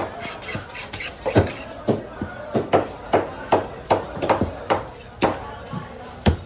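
Knife chopping fish on a cutting block: a run of hard chops with a deep thud, about two a second, unevenly spaced.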